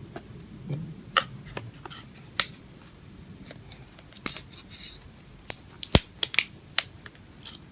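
Sharp clicks and crackles of a Fitbit Charge 2 retail box and its packaging being handled and opened, scattered irregularly, most of them bunched about four to seven seconds in.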